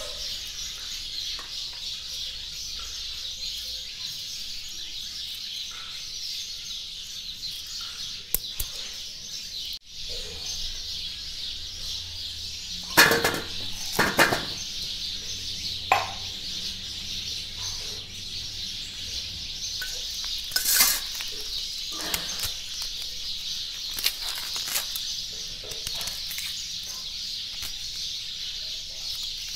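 Whole onions dropped one after another into a stainless steel plate, making a few sharp knocks, the loudest two about halfway through. Smaller knocks and handling noise follow, over a steady high-pitched hiss.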